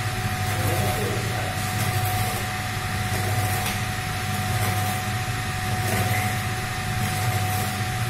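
Ribbon blender running steadily, its helical ribbon agitator churning detergent powder in a stainless steel trough: a constant low machine hum with a thin steady whine above it.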